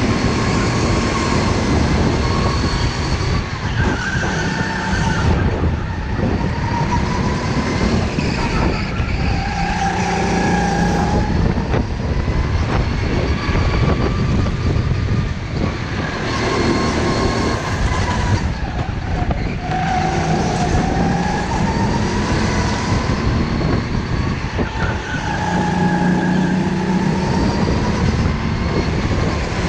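Onboard sound of a go-kart at racing speed: its motor note rising and falling again and again as the driver accelerates out of corners and lifts off into them, over a steady rush of noise.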